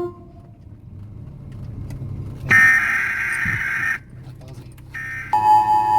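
Emergency-broadcast alert tones played through a car's sound system: a burst of high data tones lasting about a second and a half, a short second burst, then the steady two-tone attention signal starting near the end. A low engine and road hum runs underneath.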